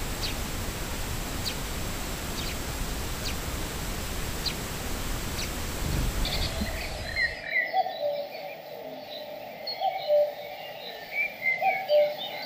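Sparrows chirping, short faint single chirps about once a second over a steady hiss. About seven seconds in the hiss cuts off and clearer birdsong takes over: busy chirps and short trills, with a low two-note call repeated every second or two.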